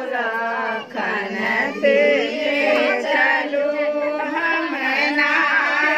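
A group of women singing together, several voices overlapping in a continuous ceremonial song.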